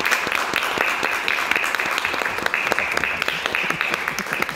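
Small audience applauding: steady clapping in which separate hand claps can be picked out.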